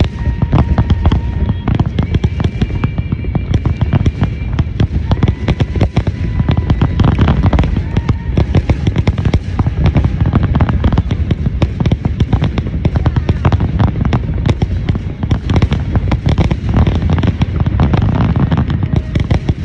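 Aerial fireworks display: a dense, unbroken stream of sharp bangs and crackling as shells burst overhead, over a heavy low rumble of booms.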